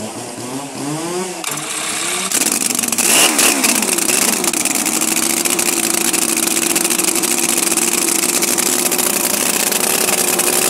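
Chainsaw powered by a four-cylinder, 30 hp, 570 cc radial engine starting up. It catches about two seconds in, revs up and down briefly, then runs at a steady high speed with an even tone.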